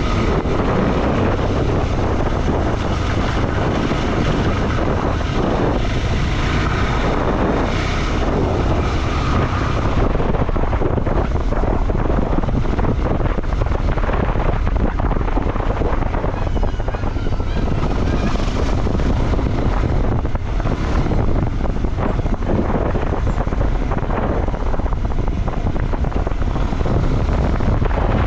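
Motorcycle running on a trail, its engine mixed with heavy wind rushing over the microphone, steady and loud throughout.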